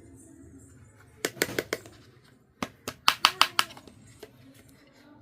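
Quick, sharp clicks and taps of small hard pieces being handled, in two bursts: about five clicks a little after a second in, and about seven more around three seconds in.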